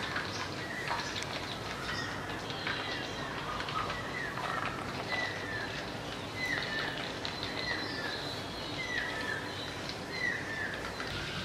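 Oil sizzling and crackling as chicken pieces deep-fry in a brass kadai. Over it a bird calls a short falling chirp again and again, roughly every two-thirds of a second, from about two seconds in until near the end.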